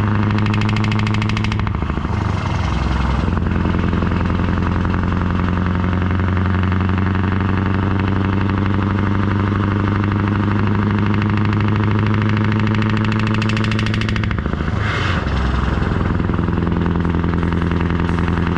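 Scania R650's V8 diesel engine running under way, a steady deep note with many overtones, its pitch shifting briefly about two seconds in and again around fifteen seconds.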